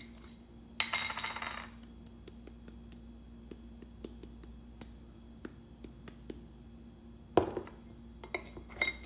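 Glass jar of black pepper being handled and pepper added to the egg: a short scraping rattle about a second in, scattered small clinks and clicks, then a sharp knock and more clinks near the end.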